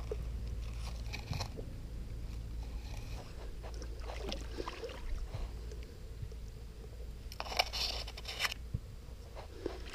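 Bankside grass and plant stems rustling and crackling against the camera, with a hand moving in shallow creek water, over a steady low rumble. A denser burst of rustling comes about seven and a half seconds in.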